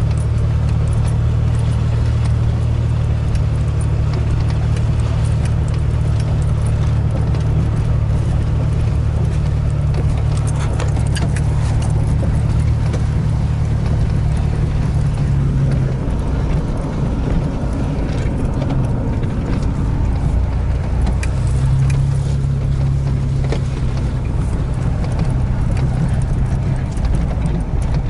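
Vehicle engine and cab noise heard from inside while driving a rough, muddy dirt track, a steady low hum whose pitch shifts a few times. Occasional short clicks and rattles over it.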